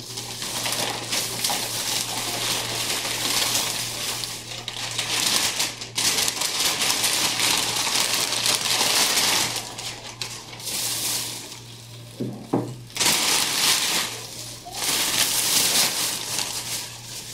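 Plastic shopping bags rustling and crinkling as they are handled and pulled about, in surges with brief pauses.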